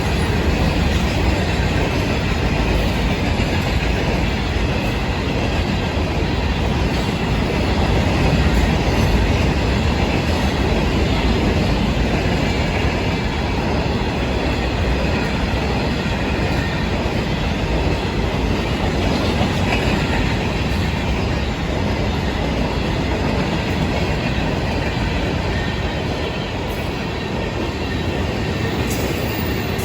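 Florida East Coast Railway mixed freight train's cars rolling past at speed, a steady, unbroken noise of steel wheels running on the rails.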